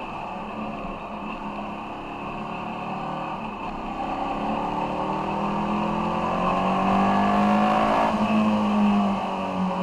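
Ducati Monster 696's air-cooled L-twin engine pulling as the motorcycle accelerates out of a bend, its revs climbing for several seconds from about four seconds in, then breaking off about eight seconds in, with rushing wind under it.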